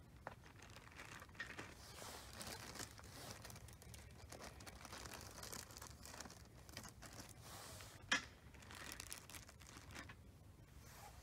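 Faint handling of an MLE 1866 Chassepot rifle being loaded with a paper cartridge: light rustling and small clicks, with one sharper click about eight seconds in.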